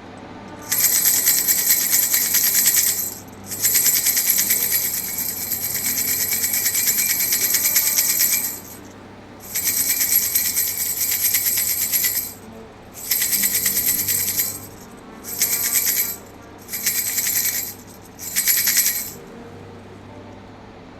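Baby rattle toy shaken in seven bouts of fast jingling rattle, the first three long and the last four short, with brief pauses between.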